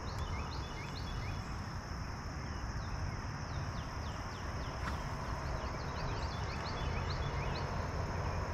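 Outdoor ambience with a steady low rumble, birds chirping in short downward-sliding notes, and a steady high-pitched whine.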